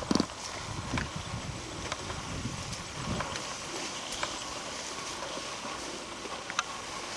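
Footsteps pushing through dense undergrowth, with soft thuds and scattered sharp snaps and clicks of twigs and brush.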